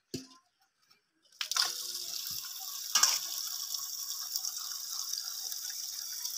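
Water from a pipe pours in a steady stream into a steel pot of boiled plant stems, starting about a second and a half in, rinsing and soaking the stems in cold water. A single sharp knock sounds about three seconds in.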